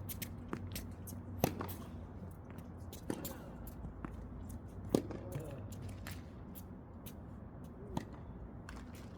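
Tennis rally: sharp pops of racquets striking the ball every couple of seconds, the loudest about a second and a half in and about five seconds in, with lighter ticks of ball bounces and footsteps between and a few brief shoe squeaks on the court.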